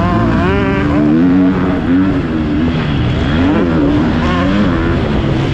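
Several motocross bike engines revving hard and overlapping, their pitch rising and falling again and again as the throttles open and close.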